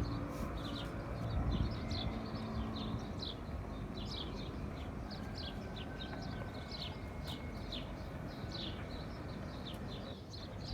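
Birds chirping busily: many short, high, falling chirps, several a second, over a steady low rumble.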